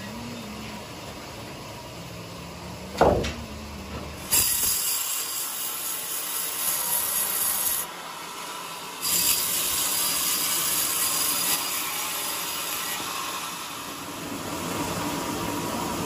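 A single sharp knock of timber about three seconds in. Then a sawmill band saw cuts through a coconut log: a steady, high, hissing sawing sound that breaks off for about a second partway through, resumes, and then carries on more softly.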